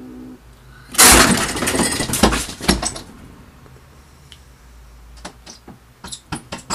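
A sudden loud clatter and scramble starts about a second in and lasts about two seconds: a startled long-haired house cat bolting off a plastic storage tub by the window. Scattered light taps and knocks follow.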